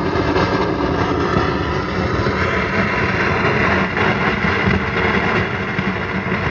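Ampeg B2R solid-state bass amplifier putting out loud, steady crackling static over a low rumble in place of any signal. This is the amp's fault: after several minutes of playing the signal cuts out completely and only this noise remains.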